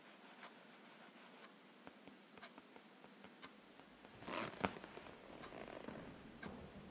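Quiet room tone with a few faint clicks, and a brief soft rustle about four and a half seconds in.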